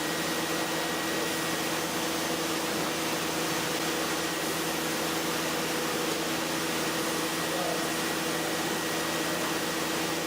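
AXYZ 8000 series CNC router running with its two routing spindles: a steady whirring hiss with a constant hum and a faint high whine.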